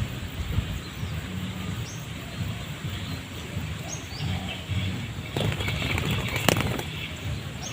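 Spotted dove flapping its wings in a burst of rustling from about five seconds in, with a sharp crack a second later. Short high bird chirps come every couple of seconds over a low steady rumble.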